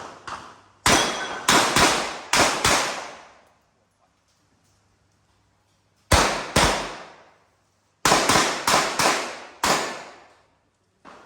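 Revolver shots fired in quick strings, each a sharp crack with a short echo: about five in under two seconds, then two more about three seconds later, then another five in quick succession near the end.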